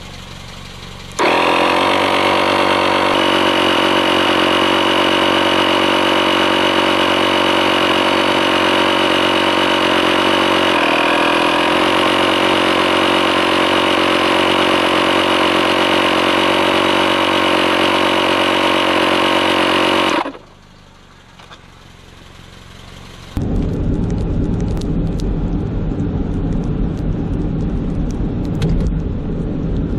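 Honda tyre-inflation compressor switched on about a second in and running with a steady, even buzzing hum while it pumps up the repaired tyre, then switched off after about nineteen seconds. After a short pause, a car drives on with road rumble.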